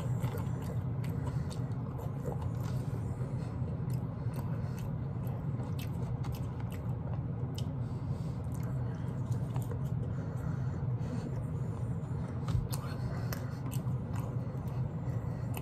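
A person chewing barbecue meat close to the microphone, with small wet mouth clicks and lip smacks scattered throughout over a steady low hum.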